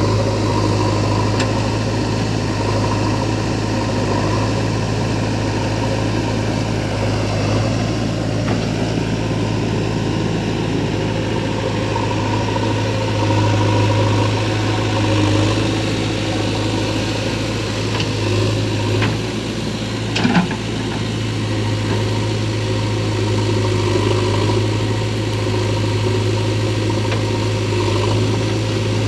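Diesel engines of a JCB 3DX backhoe loader and a tractor running steadily at work, a deep continuous hum. A few knocks and a short, louder clatter come about twenty seconds in.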